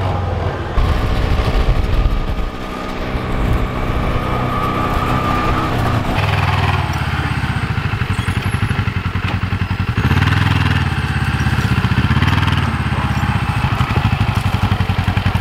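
Kubota Sidekick utility vehicle's engine running steadily as it drives, first heard from on board, then after an abrupt change about six seconds in from the field as the vehicle comes closer.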